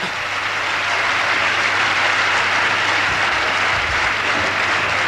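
Large crowd applauding, a dense, steady clapping that swells up and holds.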